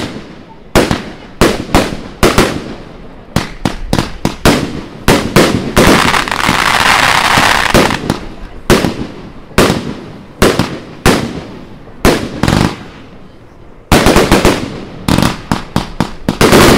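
A 144-shot, 25 mm compound fireworks cake firing: a quick string of sharp bangs from the shots and bursts. About six seconds in, a dense crackling hiss lasts a couple of seconds. From about fourteen seconds in, the bangs come thick and fast.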